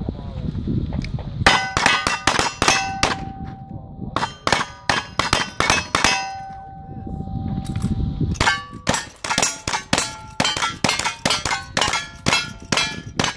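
Rapid revolver and rifle shots, each followed by the clang and ring of a struck steel plate target, fired in fast strings. The shots and clangs come thick in the first half, pause for about two seconds while a plate keeps ringing, then resume in another fast run.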